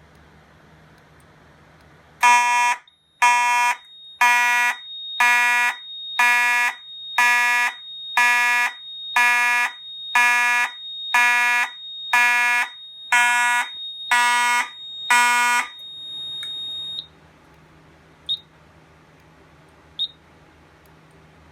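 Fire alarm horn, a Simplex 2901-9838, sounding in short, evenly spaced blasts about once a second, fourteen in all, then stopping. A thin, steady high-pitched tone runs underneath and carries on a moment longer, followed by two short high chirps. The alarm system has been set off by a smoke detector sprayed with test smoke.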